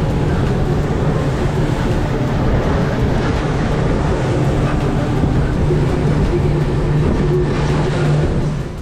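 Fishing boat running at speed: a steady engine hum over a loud rushing noise, cutting off suddenly near the end.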